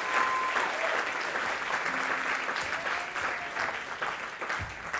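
Audience applauding at the end of a stage performance. The clapping fades gradually.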